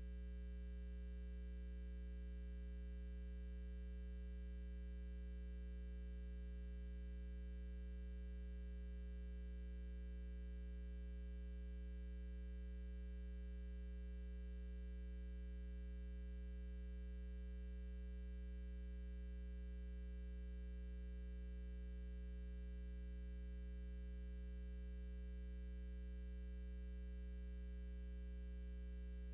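Steady electrical mains hum: a low drone with a ladder of fainter overtones above it, unchanging throughout.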